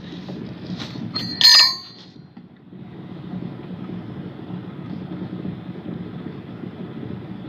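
A sharp metallic clank with a brief bell-like ring about a second and a half in, as metal strikes metal among the hand tools, then a steady low rumble.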